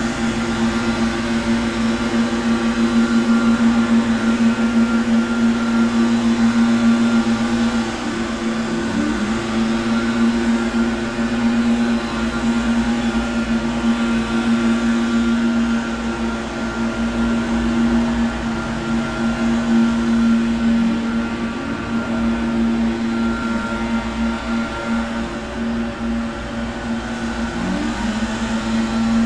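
Garden machinery running steadily outside, heard from inside a room: a continuous motor drone with a strong low hum. Its pitch dips briefly a few times.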